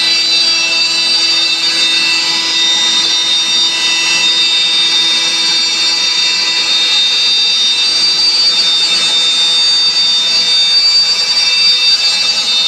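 CNC router spindle running with a steady, high-pitched whine over the noise of the bit cutting 18 mm plywood.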